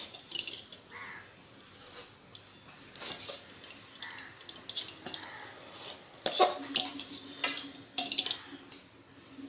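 Metal spatula scraping and clanking against a metal karahi, stirring and scraping up a sticky sesame-and-sugar-syrup mixture for sesame brittle; the stirring is done fast so the cooling syrup does not harden and stick. The scrapes and knocks come irregularly and grow louder and busier in the second half.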